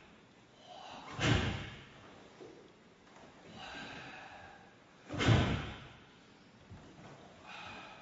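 Karate kata performed barefoot: two sharp, loud bursts of strikes with forceful exhaled breath, about a second and five seconds in, with softer breathing sounds between them.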